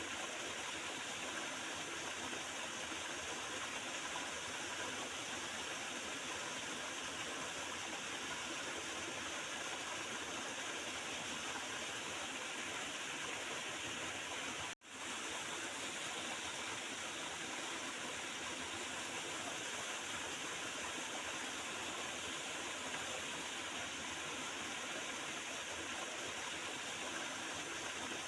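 Water of a small river gurgling and flowing steadily. About halfway through it cuts out for an instant, then fades straight back in.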